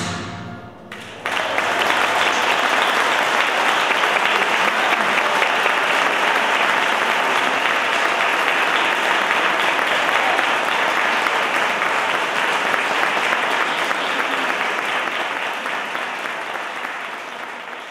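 Audience applause breaking out about a second after the final note of a castanet and music piece, holding steady and then slowly fading away near the end.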